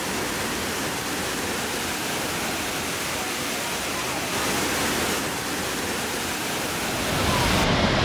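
Steady rushing roar of a waterfall pouring onto rock, growing louder about seven seconds in.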